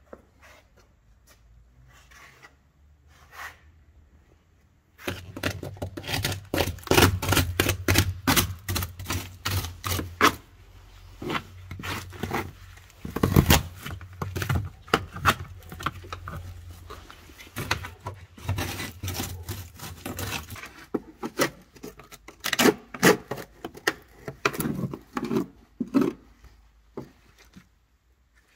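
Old bitumen sound-deadening mat and rust being scraped and torn off a Volkswagen Golf Mk2's steel floor pan: a long run of irregular scraping strokes, crackles and clicks that begins about five seconds in. A low hum runs under the scraping for a while.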